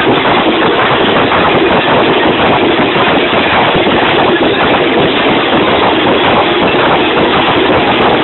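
Loud, dense drumming from a procession's drum group, a fast unbroken clatter of drums mixed with crowd noise.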